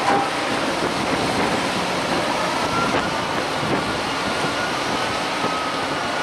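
Fendt 724 Vario tractor with a front buckrake running steadily on a silage clamp, with a faint high whine that drifts slightly in pitch.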